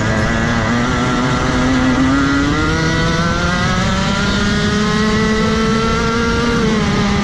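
Rotax Max Evo 125cc two-stroke kart engine accelerating at full throttle, its pitch rising steadily as the kart picks up speed out of a slow corner. Near the end the pitch drops as the throttle is lifted.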